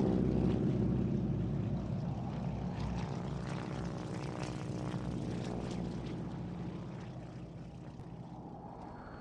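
Airplane engine droning steadily, fading gradually as it passes away.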